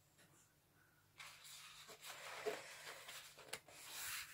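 Faint rustling and sliding of paper as a hand handles the pages of a hardback picture book, starting about a second in and growing louder near the end as a page is taken to turn.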